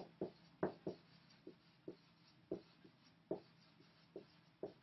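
Dry-erase marker writing on a whiteboard: a run of short, unevenly spaced marker strokes, about two a second.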